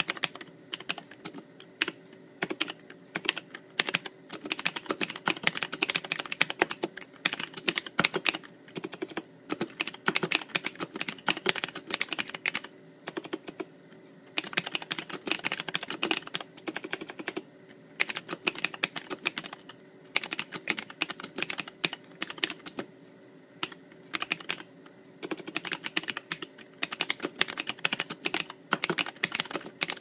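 Continuous typing on a mechanical keyboard with Cherry MX Blue switches (oil-lubricated springs, custom acrylic housing, PBT keycaps): a dense run of sharp key clicks with a few brief pauses.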